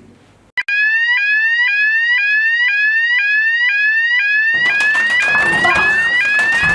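Electronic fire alarm sounding a rapidly repeating rising sweep tone, about two sweeps a second. It starts sharply just under a second in, and about two-thirds of the way through a noisier jumble of other sounds joins it.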